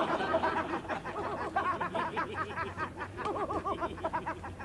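High-pitched giggling: a rapid run of short rising-and-falling laughs, several a second.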